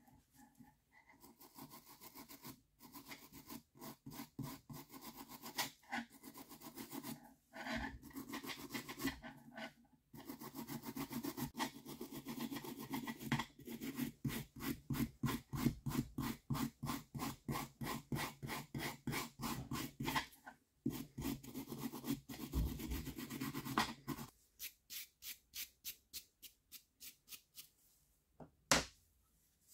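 Small hand-held wire brush scrubbing rust off the steel shaft of an old screwdriver, in quick back-and-forth strokes of about three a second. The strokes thin out and stop near the end, followed by a single sharp knock.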